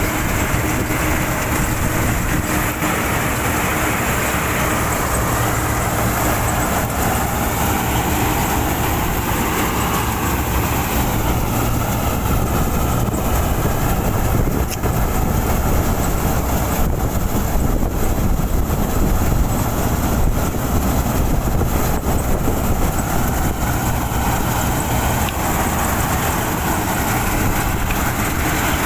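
Combine harvester running steadily at work in a wheat crop, a continuous loud mechanical drone with a low engine hum.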